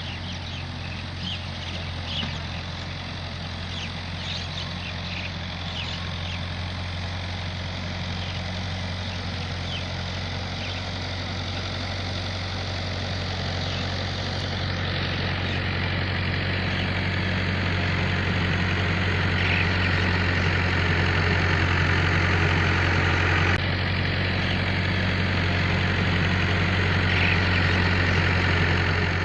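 Farm tractor's diesel engine running steadily under load as it grades soil with a front blade, growing gradually louder as it comes closer. Short bird chirps sound over it in the first half.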